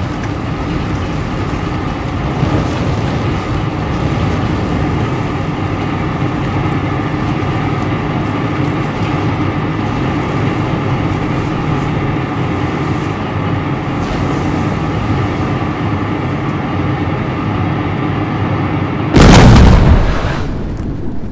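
A burning oil-well gusher gives a steady, heavy rushing noise. About nineteen seconds in, a sudden loud explosion goes off and fades over a second or two.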